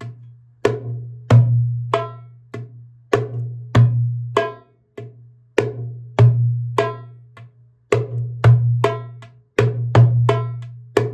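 Darbuka (goblet drum) played solo in an exercise cycling through its four basic strokes: the deep ringing bass, the high, the medium and the slap. The strokes come at a slow even pace, about one every 0.6 seconds, then quicken in the last few seconds.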